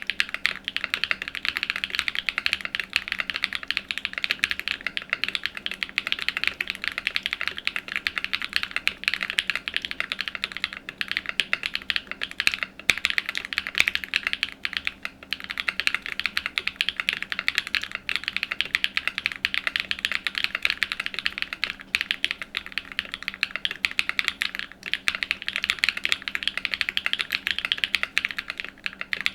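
Fast, continuous typing on a Cycle7 mechanical keyboard with an aluminium plate and factory-lubed Sarokey Strawberry Wine V2 switches. The dense run of keystrokes breaks off in a few short pauses and stops abruptly at the end.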